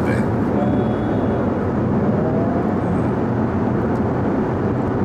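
Steady road and engine noise of a car driving at speed, heard from inside the cabin, with a faint thin whine for a couple of seconds early on.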